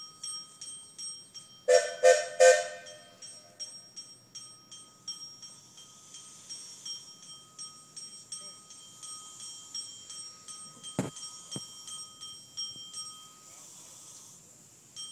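The bell of a small Gypsy steam locomotive (Bear Harbor #1, built by Marschutz & Cantrell) ringing steadily, about three strikes a second, while the engine moves. About two seconds in come three short loud toots of its steam whistle, and near eleven seconds two heavy metallic clanks about half a second apart.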